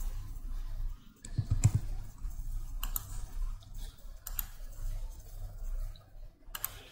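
Computer mouse clicks and keyboard keystrokes, a few sharp clicks spread apart, over a steady low electrical hum. A short low sound about one and a half seconds in is the loudest moment.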